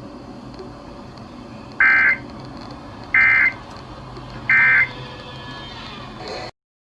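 Emergency Alert System end-of-message code received over FM radio: three short, screechy two-tone data bursts about a second and a half apart over steady radio hiss, signalling that the alert is over. The audio cuts off abruptly near the end.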